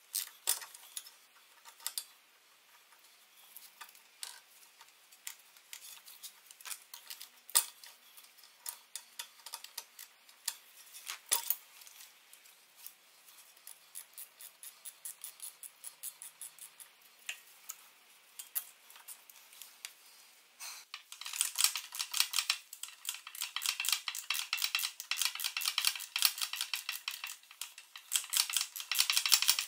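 Metal hand tools clinking and tapping against metal parts, then, about two-thirds of the way through, a long stretch of rapid metal-on-metal scraping.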